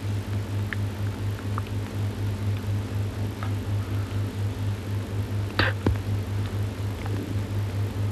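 Low hum pulsing about five times a second, with scattered faint clicks and crackle and a short hiss about five and a half seconds in: background noise of an old film soundtrack transfer.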